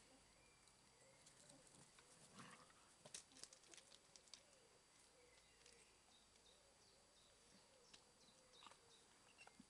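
Near silence with faint scattered clicks and rustles of yellow Labrador puppies' paws moving over grass and slate chippings, most of them around the middle and again near the end.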